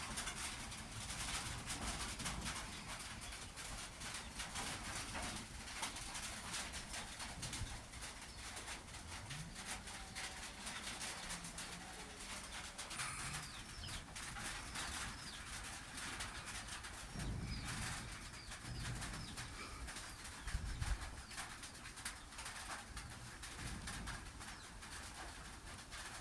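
A dove cooing a few times, low and slow, over a steady outdoor hiss with faint crackling.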